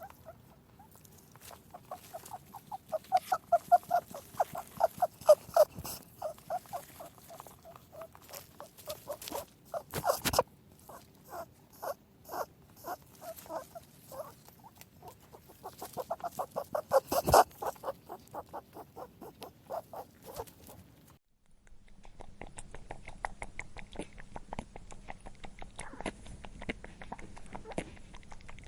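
Rabbit making quick, rhythmic runs of short squeaky grunts, several a second, swelling louder and fading, with a couple of sharper clicks among them. About two-thirds of the way in it cuts to a different rabbit recording of fainter, faster clicking.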